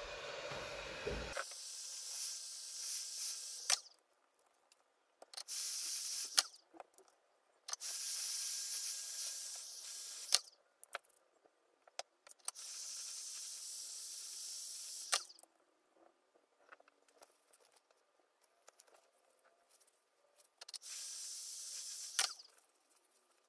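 Heat gun blowing hot air in five short bursts, each a steady hiss that starts and stops abruptly, with small clicks and taps of handling between them. It is warming the adhesive of a freshly refitted tablet screen.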